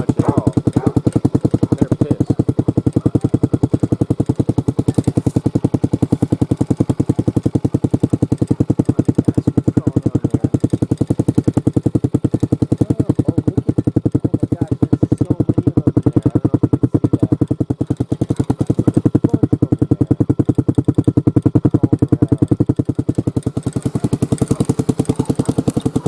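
Hawk 250 motorcycle's single-cylinder four-stroke engine running steadily at idle, heard at the muffler outlet as an even, unbroken run of exhaust pulses.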